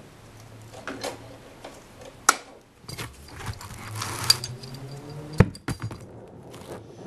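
Sharp metallic clinks and knocks from tools and a steel shift linkage rod being bent under a Corvair, the two loudest about two and five and a half seconds in, over a low steady hum.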